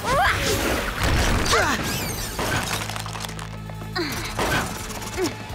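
Cartoon action soundtrack: dramatic music with crashing, glass-shattering impact effects and several falling swoops.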